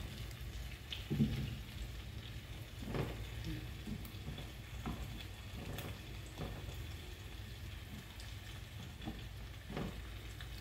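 Raw potato slices frying in melted butter in a pan, a light crackling sizzle, with a few soft knocks as more slices are laid in.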